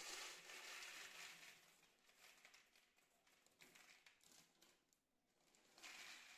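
Faint rattle of dry spiral pasta poured from a plastic packet into a plastic jar, with the packet crinkling. It dies down after a second or two to scattered small ticks, then comes back in a short burst near the end.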